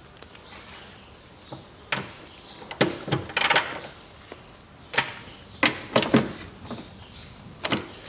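Ratchet wrench and socket working on bolts in a car's engine bay: irregular metallic clicks and clunks, several ringing briefly, as the bolts are drawn tight and the tool is shifted and set down.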